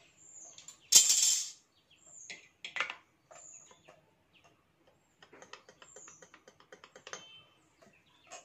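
Small clicks and rattles of a submersible pump's stacked impeller column and its loose top-end parts being handled, with a loud brief rustle about a second in and a quick run of ticks in the second half. Birds chirp in the background.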